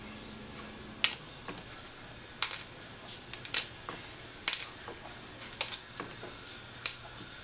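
Crisp snapping of Belgian endive leaves broken into bite-size pieces by hand, about six sharp cracks roughly a second apart.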